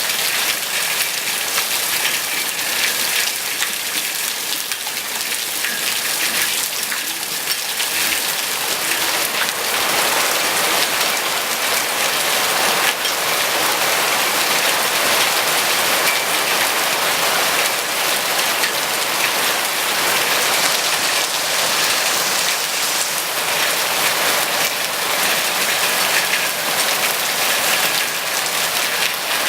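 Heavy rain falling steadily, a dense even hiss of drops that fills out and grows a little louder about eight seconds in.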